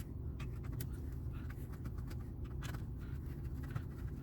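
Light clicks and scratches of small parts being handled, several spread through, over a steady low hum.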